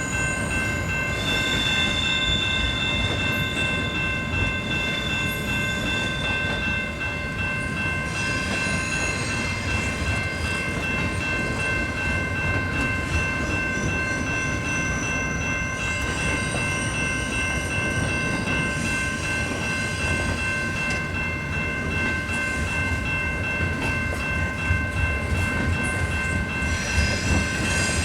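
CP intermodal double-stack freight train rolling past: a steady rumble of wheels on rail with several high, steady squealing tones above it.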